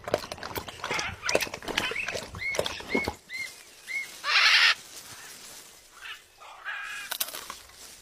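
A blue-and-gold macaw's beak knocking and scraping at a green coconut, mixed with bird calls: four short chirps in quick succession, then one loud, harsh screech about four seconds in, and a few more calls near the end.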